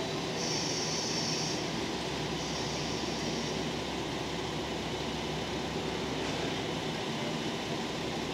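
JNR KiHa 40-series diesel railcars running at crawling speed as they draw to a stop at the platform, with a steady diesel engine rumble. Two short high-pitched hisses come in the first few seconds.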